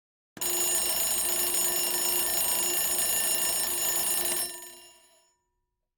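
Alarm bell ringing continuously: it starts abruptly, holds steady for about four seconds, then stops and rings out for about a second.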